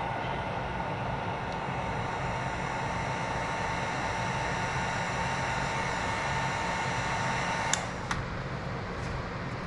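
A handheld heat gun blowing steadily with a motor whine, switched off with a click nearly eight seconds in.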